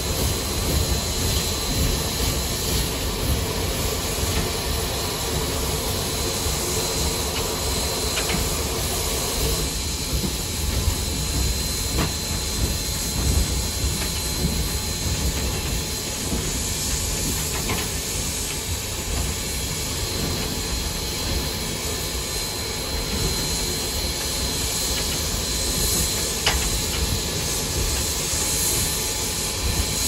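Cab noise of Southern Railway 4501, a 2-8-0 steam locomotive, under way: a steady hiss of steam over a low rumble, with a few faint ticks. The noise thins a little about ten seconds in.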